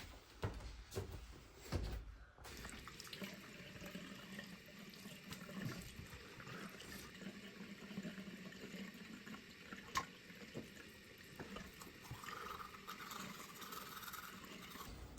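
Water running steadily from a tap, after a few knocks and thumps in the first two seconds.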